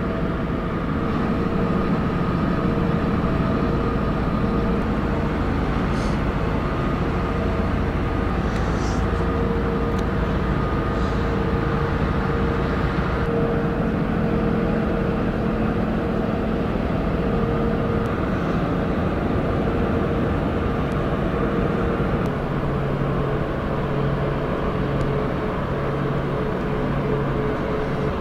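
Harbour tugboats' diesel engines working hard to push and turn a bulk carrier, a steady low drone with a steady hum over it. A deeper note joins about 22 seconds in.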